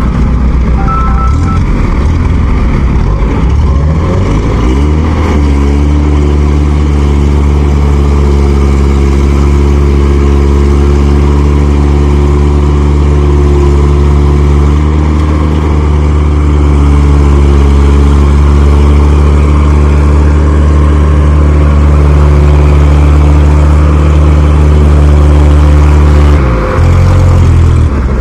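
Heavy diesel engine revving up and then running hard and steady under load for about twenty seconds as a bogged Kubota rice harvester is towed out of deep mud, easing off near the end. A short series of electronic beeps sounds at the start.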